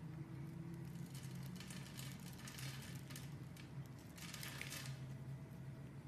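Utility-knife blade slicing through a grid-scored bar of soap, the small soap cubes crumbling off with a crisp scraping crunch, in one longer pass about one to three seconds in and a shorter one a little past four seconds. A steady low hum runs underneath.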